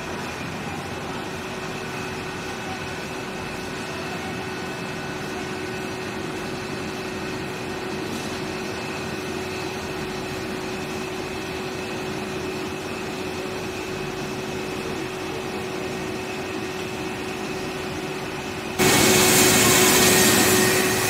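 Trasing S4000 modular conveyors running a beer-bottle line: a steady machine hum with a low tone and a fainter higher whine. Near the end the sound jumps suddenly louder with a strong hiss.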